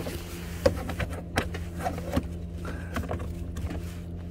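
Irregular clicks and knocks from a diagnostic scanner being unplugged from the car's OBD port and handled, over a steady low hum.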